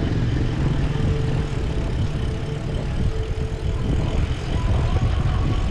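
Wind buffeting the microphone of a camera riding on a moving mountain bike, with tyre noise on a concrete road.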